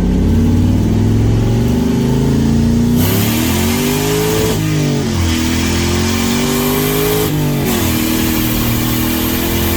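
Turbocharged car engine accelerating hard, its pitch climbing and then dropping sharply at two gear changes, about halfway through and again near the three-quarter mark. A rushing noise joins the engine about a third of the way in.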